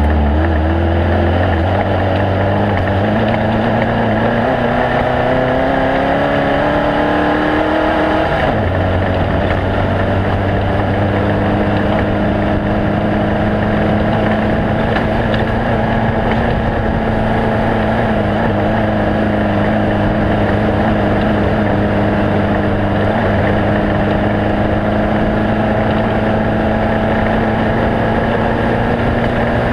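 A motor running continuously. Its pitch rises slowly over the first several seconds, shifts abruptly about eight seconds in, then holds nearly steady.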